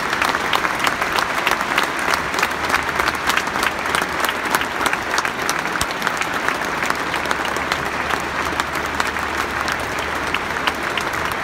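Large stadium crowd applauding: dense, steady clapping from many hands.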